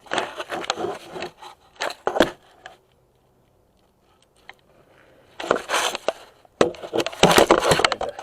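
Metal hand tools clinking, knocking and scraping in bursts, with a near-silent gap in the middle and busier clattering toward the end.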